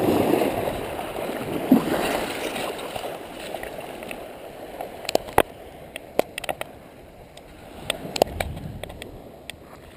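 Shallow surf washing and sloshing around someone wading ashore. It is loudest in the first two seconds and fades. In the second half come scattered sharp clicks and taps from fingers handling the camera.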